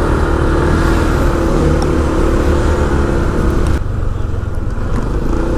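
Motor vehicle running on the road: a steady engine hum over road rumble, and the higher hiss drops away about four seconds in.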